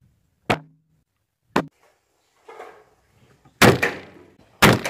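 Horton Summit 150 crossbow being fired: a sharp snap about half a second in and a smaller one a second later, then two much louder snaps near the end, each with a short rattling tail.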